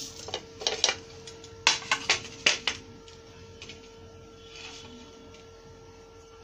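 Steel spatula clinking against a frying pan and a ceramic plate as a cooked uttapam is lifted out and served: a handful of sharp clinks in the first three seconds, then quiet.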